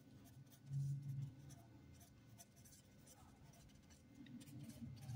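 Faint scratching of handwriting as figures are written out by hand, with a brief low hum about a second in.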